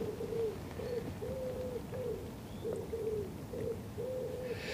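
A pigeon cooing: a repeated phrase of one long coo followed by several shorter ones, heard twice.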